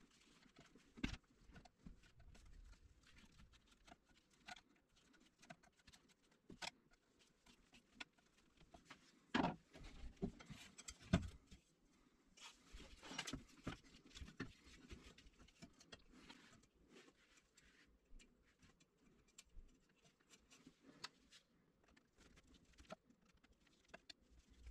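Faint workshop handling sounds: scattered light clicks, taps and rustles of hands working wires and the sheet-metal case of an old car battery charger. Two louder knocks come about ten seconds in, a second and a half apart.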